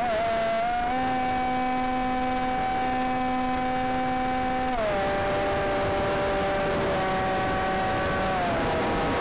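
Electric motor and propeller of a Blade Theory W flying wing running in flight, a steady whine whose pitch follows the throttle: it drops right at the start, rises a little about a second in, drops again about five seconds in and once more near the end.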